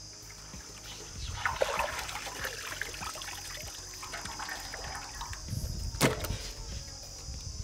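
Water running and dribbling off large washed red pomfret fish as they are lifted, splattering on the ground. A single sharp knock about six seconds in.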